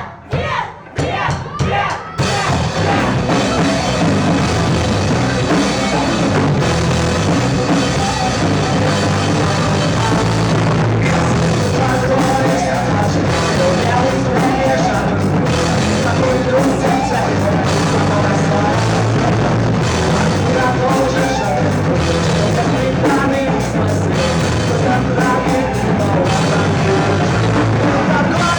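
Live rock band with a drum kit playing at full volume, the song kicking in about two seconds in after a few short separate hits.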